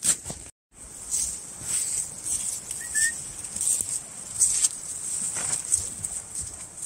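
Footsteps crunching in shallow fresh snow at an unhurried walking pace, a step about every two-thirds of a second. The sound cuts out completely for a moment about half a second in.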